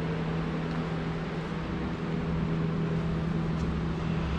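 Steady mechanical hum, a constant low tone under an even hiss, unchanging throughout.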